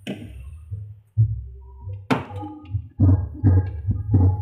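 Plastic thermostat cover inside a refrigerator being pried and pulled loose by hand: a click near the start, a knock about two seconds in, then a quick run of knocks and creaks near the end, over a steady low hum.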